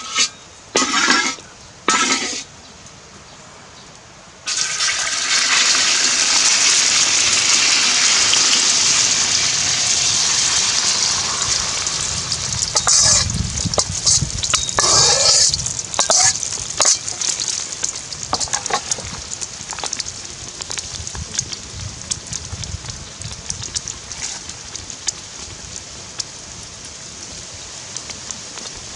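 Beaten eggs hitting hot oil in a steel wok: a loud sizzle starts suddenly about four seconds in, then keeps frying with many small crackling spits and slowly dies down as the omelette sets.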